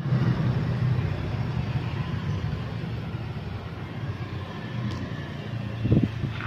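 A motor vehicle running steadily, with a brief thump about six seconds in.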